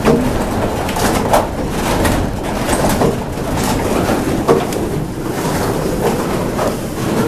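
Wooden gearing inside a working Dutch windmill turning: a steady low rumble with irregular wooden knocks and creaks.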